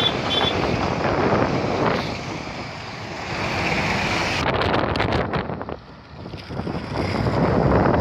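Diesel articulated lorry (Mercedes-Benz tractor unit with curtain-sider trailer) passing close by and pulling away, engine running, with wind buffeting the microphone.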